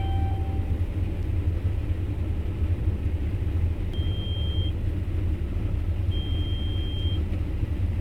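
Claas Lexion 730 combine running steadily, heard from inside the cab as a low rumble. A high electronic alert tone from the cab sounds twice, about four and six seconds in, each lasting about a second.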